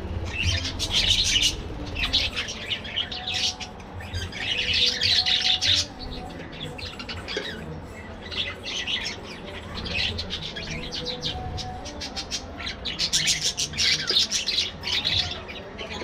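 A flock of budgerigars chattering and squawking, in busy bouts of rapid high calls with short lulls between, loudest near the start, around the middle and towards the end.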